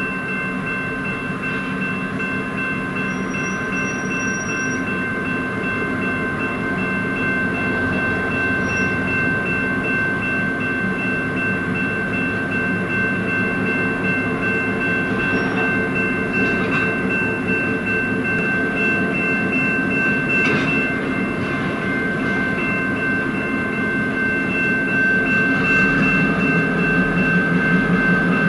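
Diesel locomotive running, a steady high whine held over its engine rumble, growing gradually louder as it nears, with a few faint clicks from the wheels.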